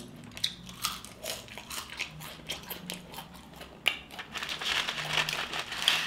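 Close-miked eating: chewing fries with mouth clicks and soft crunching, along with some crinkling, which grows busier in the last second or two.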